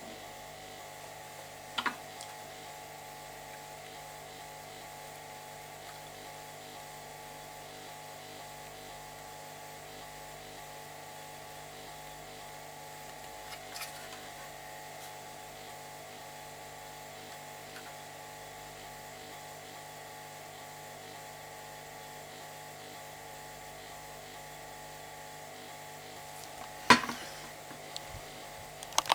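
Steady, unchanging hum from bench equipment, with a couple of light clicks and one sharper knock near the end.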